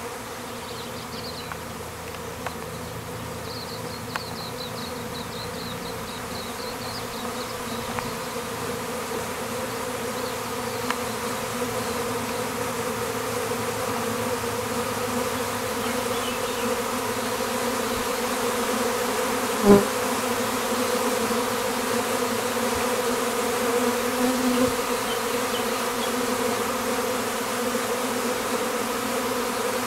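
Honeybees buzzing: a steady, low hum of many wingbeats that grows slightly louder, with one sharp knock about twenty seconds in.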